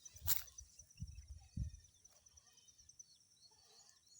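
Outdoor farm ambience: a steady high, finely pulsing insect trill with faint bird chirps, and a sharp click followed by a few low thumps in the first two seconds.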